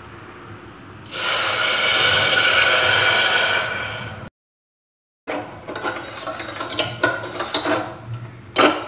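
Water poured from a cup into a steel saucepan of sugar, a steady splashing hiss for about three seconds. After a short dropout, a steel spoon stirs the sugar and water, scraping and clinking against the saucepan.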